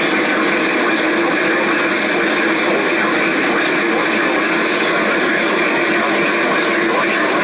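Steady hiss of radio static confined to a narrow band, like a weakly received radio broadcast channel carrying an emergency alert.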